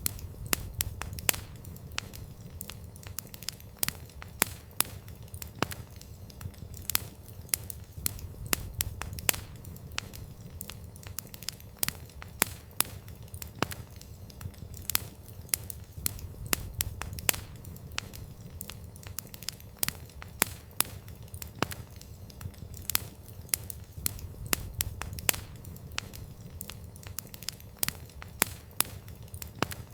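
Wood campfire burning, crackling and popping irregularly, several sharp pops a second, over a low steady rumble of the flames.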